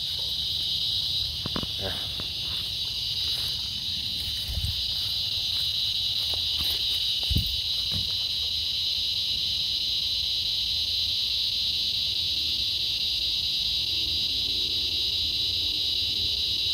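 Steady high-pitched drone of a chorus of insects, even and unbroken, with a couple of brief soft knocks.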